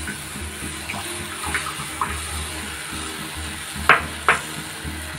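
Cornflour slurry poured from a bowl into tamarind water heating in a nonstick wok, then stirred with a silicone spatula, over a steady low hum. Two sharp knocks close together about four seconds in.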